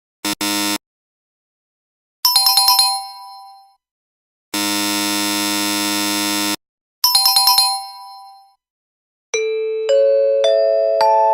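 Quiz-show sound effects played one after another: a short buzzer blast, a quick run of bright chime strikes, a two-second buzzer, another chime run, then a series of bell tones stepping upward in pitch.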